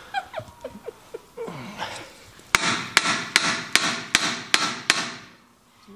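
Hammer striking a seal driver to tap a new wheel seal into an axle hub, about seven sharp metal blows in quick succession from about halfway through. The seal replaces one that was leaking.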